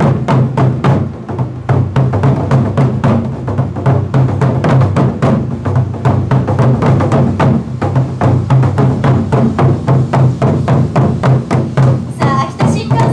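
Japanese taiko drums beaten hard in a fast, steady rhythm by several players, the strikes running on without a break.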